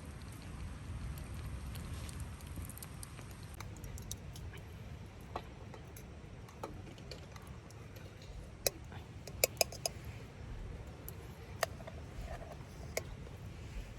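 Scattered sharp clicks and taps over a low steady rumble, with a quick run of about four clicks a little past the middle.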